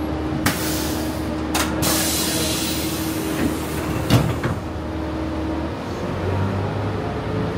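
Passenger cabin of a Walt Disney World transit vehicle, a bus or the monorail, with a steady running hum. Short bursts of air hiss come between about half a second and two and a half seconds in, and a sharp clack about four seconds in. Near the end a rising whine starts as the vehicle speeds up.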